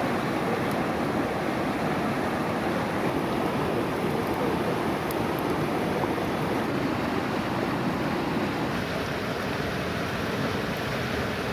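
Fast-flowing river running over rocks and rapids: a steady rushing of water.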